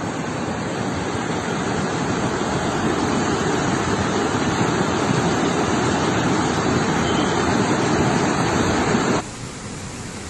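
Rushing floodwater: a swollen stream in flood running as a steady, heavy rush. About nine seconds in it cuts off suddenly to a quieter rush.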